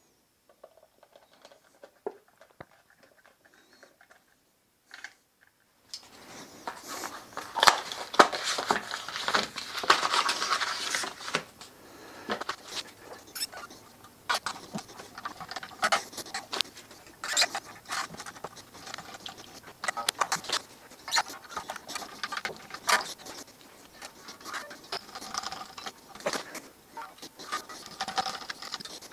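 Steel strings of an electric guitar being handled and wound onto the headstock tuners during restringing: a busy run of rattling, scraping and clicking. It starts about six seconds in, after a few faint clicks.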